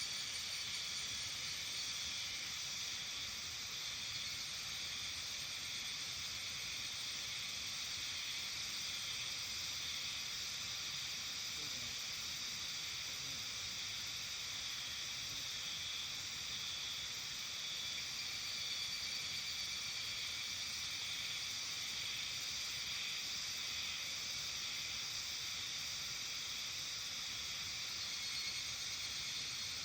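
Steady evening chorus of insects: a continuous high-pitched, hiss-like drone of many voices. It stays at an even level without a break.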